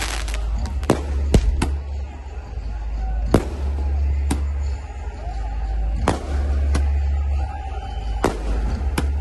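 Firecrackers going off in the crowd, about ten sharp bangs at irregular spacing, over loudspeaker music with a heavy low bass.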